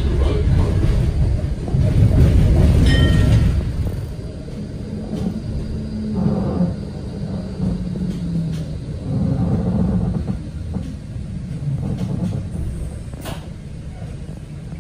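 Electric tram running on street rails, heard from inside the car: a steady low rumble of wheels and motors, loudest in the first few seconds. Around the middle a low whine falls slightly in pitch and the rumble eases as the tram slows into a stop.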